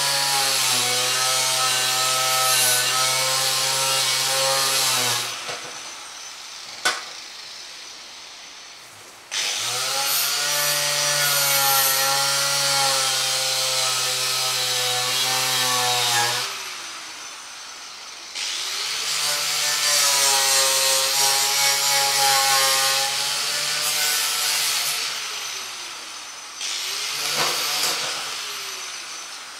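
A corded handheld electric power tool worked against a metal ammunition box in repeated runs of several seconds, its motor hum sagging in pitch as it is pressed in and recovering, over a rough hiss. There are three long runs with short pauses between them, a sharp click in the first pause, and a short run near the end.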